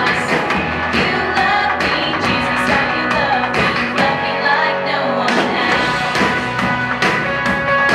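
Upbeat pop-rock song for a children's program playing loud, with a steady beat and voices singing along.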